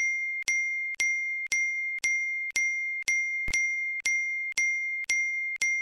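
A bright, bell-like notification ding sound effect struck over and over at an even pace, about twice a second, each ring carrying on into the next.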